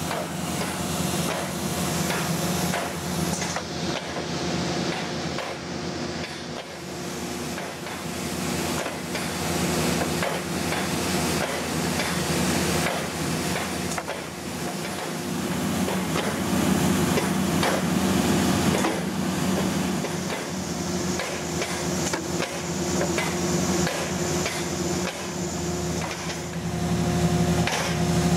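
Paint striping truck's machinery running steadily: a constant hum with a fast, even clatter and a hiss of air or spray over it.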